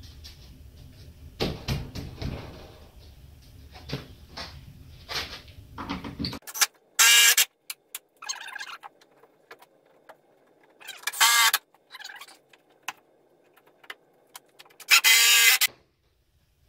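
Scattered knocks and taps as wooden shims are set behind a door jamb. Then a cordless drill runs in four short bursts, each a second or less with a high whine, driving a 3-inch screw through the door hinge into the framing to hold the jamb from flexing.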